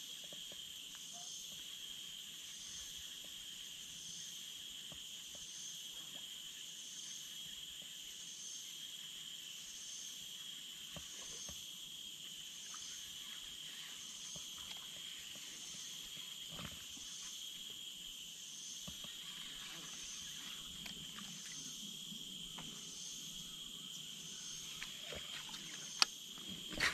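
Steady insect chorus: a constant high buzzing, with a still higher call pulsing roughly once a second over it. There are a few faint ticks, and one sharp click near the end.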